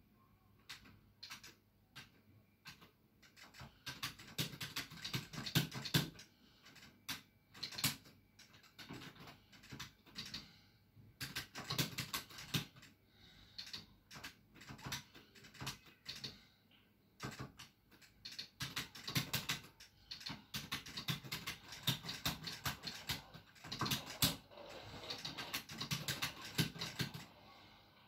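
An arcade stick being played hard: rapid clattering clicks of the arcade buttons and the Crown 303 joystick's lever rattling against its gate, in quick flurries with short pauses.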